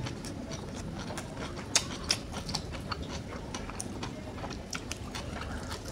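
Close-up chewing of crunchy fried chicken with its crisp breading, heard as a run of irregular crackling clicks, the sharpest a little under two seconds in.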